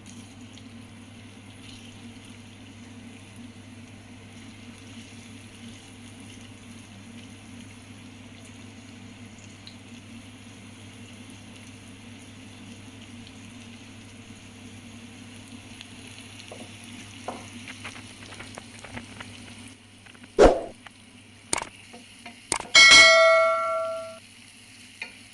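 Food sizzling steadily on a kottu roti griddle. Near the end come a few sharp metal knocks, then one loud ringing clang of metal on the griddle that dies away over about a second and a half.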